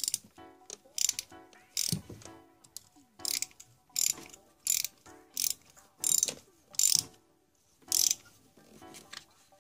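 Ratchet wrench with a spark plug socket and extension clicking in short repeated strokes, about a dozen of them at uneven intervals, as it is swung back and forth to unscrew a spark plug.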